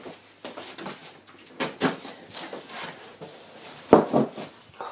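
Large cardboard shipping box being opened by hand: cardboard flaps rustling and scraping as they are pulled back, with a sharp knock about four seconds in.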